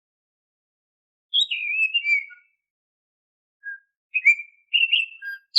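Oriental magpie-robin (kacer) singing its whistled song: a short phrase of clear, gliding whistled notes starting about a second in, then after a pause a further run of whistled notes near the end.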